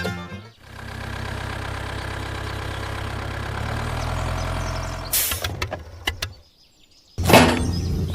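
An engine running steadily for about four seconds, then a few sharp clicks and a brief pause, followed by loud clattering knocks near the end.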